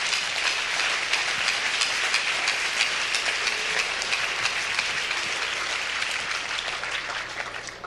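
An audience applauding: many hands clapping in a dense, even patter that tapers off near the end and stops. Not a very healthy hand clap, a rather lukewarm round.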